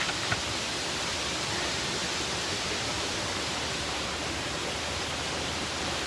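Steady rushing of a waterfall pouring down a rock cliff into a pool.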